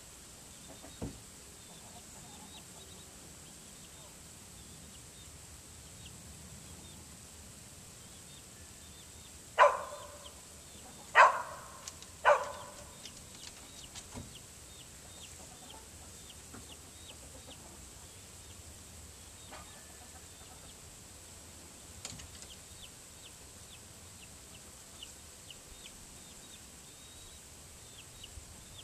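Chicken giving three loud, short calls a little over a second apart, about ten seconds in, with a couple of fainter calls later and faint high chirps throughout.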